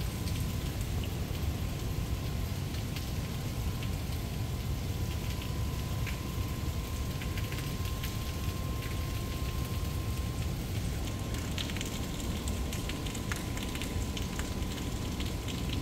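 Outdoor swimming-pool ambience: a steady rushing noise, heaviest in the low end, with a light scattered patter of drops and a faint steady high hum.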